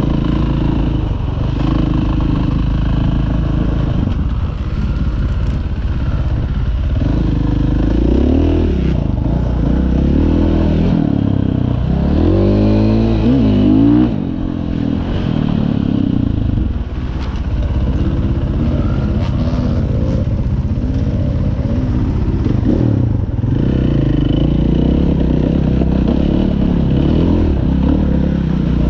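Dirt bike engine running under load on a rough trail, its revs rising and falling with the throttle. The revs swing up and down most sharply about twelve seconds in, then drop back briefly around fourteen seconds.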